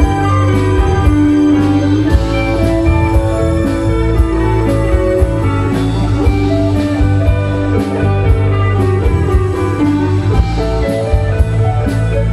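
Live rock band playing through a PA: electric guitars over keyboard and drum kit, with a steady beat.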